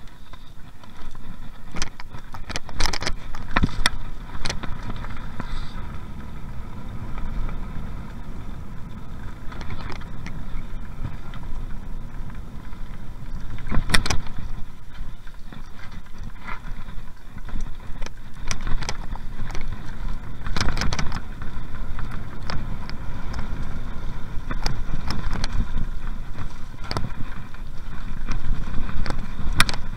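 Mountain bike descending a rough dirt trail: a steady low rumble of tyres and wind, broken by frequent sharp knocks and rattles as the bike goes over bumps.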